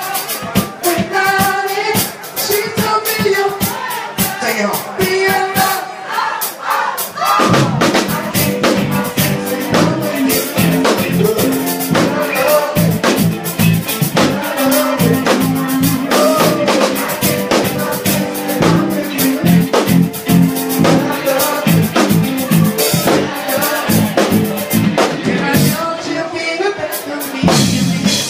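Live band music over a drum kit: singing with keyboard for the first several seconds, then about seven seconds in a bass line and electric guitar come in and the full band plays on.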